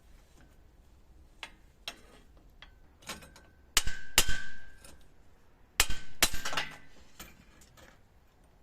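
Metal clinking and clanging: a few light clicks, then two clusters of sharp metal-on-metal strikes with a short ring, about four and six seconds in.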